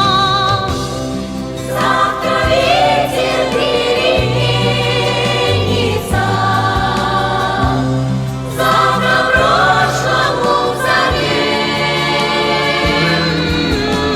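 Slow waltz music with singing voices holding long, wavering notes over sustained bass notes.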